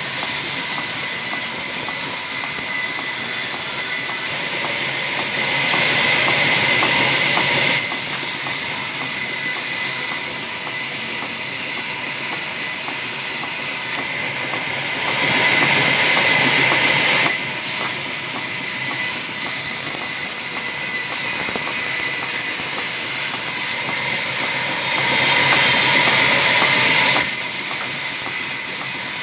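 Sawmill saw running with a steady high whine and hiss. It gets louder three times, for two or three seconds each, as timber is fed through the blade.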